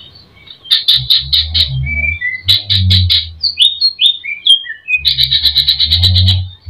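Cucak ijo (green leafbird) singing a varied song full of mimicked phrases. It gives quick runs of repeated high notes, a string of short falling whistles in the middle, and a long fast trill near the end.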